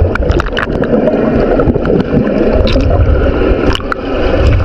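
Pool water gurgling and sloshing right at the microphone, with scattered sharp clicks.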